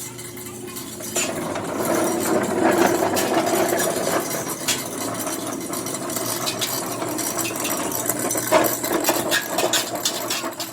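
Workshop machinery running steadily, with scattered metal clinks and clatter; it starts about a second in.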